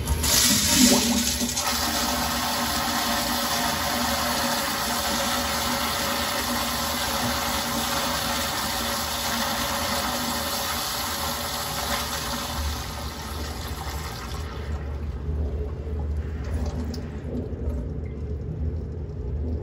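Commercial toilet with a sensor-operated flushometer valve flushing. The surge of water is strongest about a second in, followed by a steady rush of water for about fourteen seconds, which then falls off to a much quieter sound as the valve shuts.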